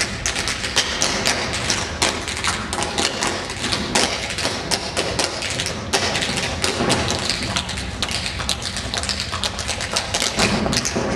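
A group of tap dancers' shoes striking a tiled floor in unaccompanied tap rhythms: many quick metal clicks and heel thuds, with no music.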